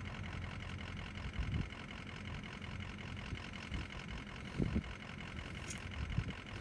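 Vehicle engine idling steadily with a low rumble, with a couple of brief low bumps.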